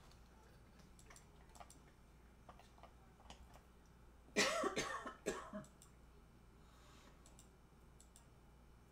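A person coughs briefly about four and a half seconds in, over faint room tone with a few light clicks.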